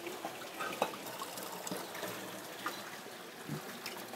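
Water trickling steadily from a tap into a basin, with a few light knocks and clicks scattered through it.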